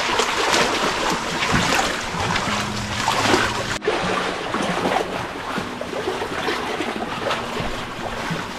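Small waves lapping and sloshing against a rough rock shoreline, with many small splashes and trickles. The sound drops out sharply for an instant about four seconds in.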